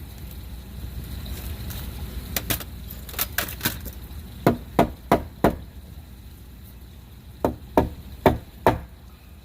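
Hammer striking wood: about a dozen sharp knocks in short runs of two to four, the loudest in the second half.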